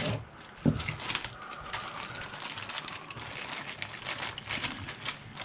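Thin clear plastic bag crinkling and rustling as a white plastic model car body is handled in it and worked out of it, with one sharp knock a little under a second in.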